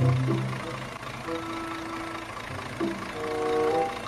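Background music: a simple melody of held notes over a low bass note.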